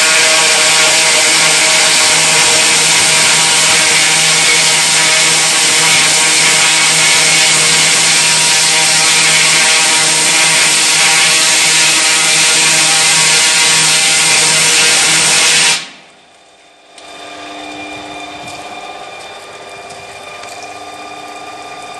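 Kärcher ultra-high-pressure water jet at about 1000 bar blasting paint off a paint booth grating: a loud, steady hiss over the hum of the pump unit. About 16 s in the jet cuts off suddenly, and after a short lull the pump unit runs on more quietly.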